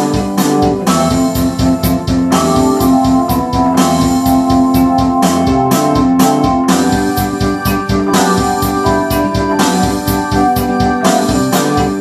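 Ensoniq SD-1 synthesizer playing sustained chords in an electric piano and organ voice over a steady drum beat.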